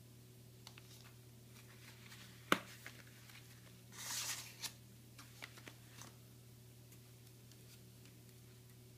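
Hands handling a tri-fold wallet and a plastic bar on a tabletop: a sharp click about two and a half seconds in, a short rustle about four seconds in, and scattered light taps, over a faint steady hum.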